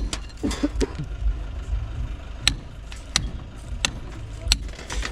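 Sharp knocks repeating evenly, about one every two-thirds of a second, over a steady low rumble, from work on a block wall being built up.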